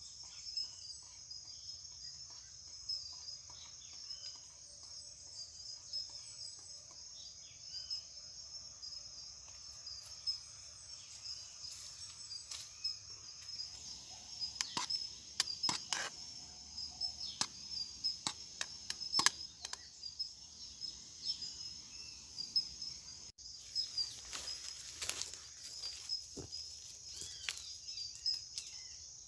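Insects trilling in a steady, high, pulsing chorus. From about halfway through come scattered short clicks and knocks.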